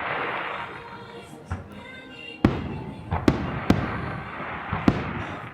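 Aerial fireworks bursting: a string of booms, the loudest about two and a half seconds in, with a crackling hiss trailing after the bursts.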